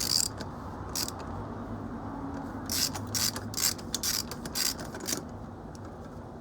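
Ratchet wrench clicking as it turns an oil filter cap wrench on the oil filter housing cap of a BMW N52 engine: a couple of single clicks, then a quick run of clicks at about three a second.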